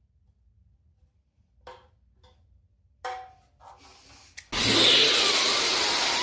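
A few light knocks as a motorcycle fuel tank is handled and lifted, then, about four and a half seconds in, a loud, harsh burst of noise from an inserted meme sound effect cuts in abruptly.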